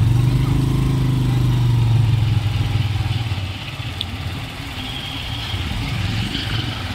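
Motorcycle engine running at a steady speed, easing off about three seconds in.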